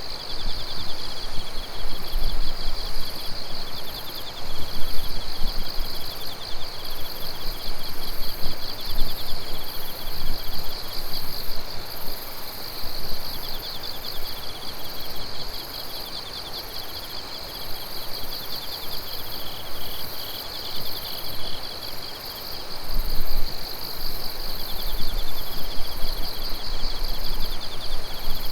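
A night chorus of several singing insects calling together: a steady high pulsing trill, a slightly lower trill that starts and stops in long phrases, and very high short chirps repeated over and over. A low rumble comes and goes underneath.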